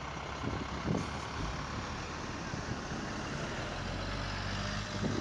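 Truck engine idling close by, a steady low hum that grows stronger partway through, over the noise of road traffic.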